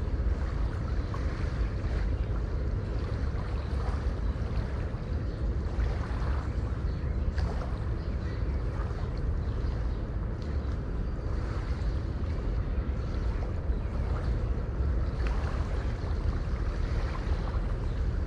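Sea waves washing and splashing continuously over a deep, steady rumble of surf.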